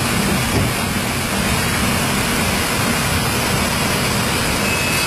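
Folder-gluer and its automatic box collector running: a loud, steady machine hum with a hiss over it.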